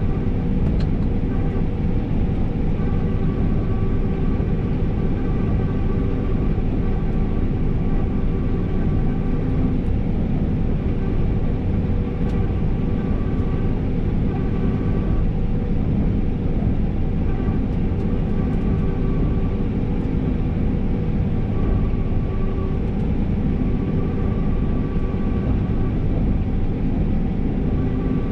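New Holland CR 5.85 combine harvester running steadily while harvesting, heard from inside the cab: a constant low rumble with a faint whine that comes and goes.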